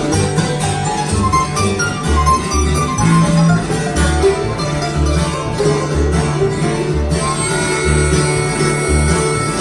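Acoustic bluegrass band playing an instrumental break: picked guitar and string-band lead over bass notes on a steady beat.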